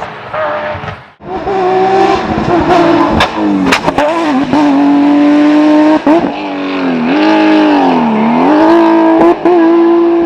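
Porsche rally car engine running hard at high revs. The note dips and climbs again as the throttle is lifted and reapplied, sagging deeply and recovering about eight seconds in. A few sharp cracks are heard around three to four seconds in.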